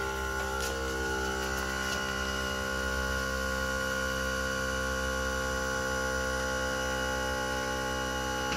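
70mai portable car air compressor running steadily with an even electric hum, pumping up a collapsible space-saver spare tyre.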